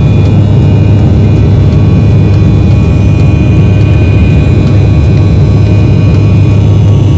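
Airliner cabin noise in the climb just after takeoff: a steady, loud, low roar of the engines and airflow heard from inside the cabin.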